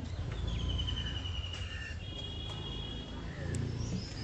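Insects trilling, a high steady buzz that comes in stretches of about a second, over a low rumble.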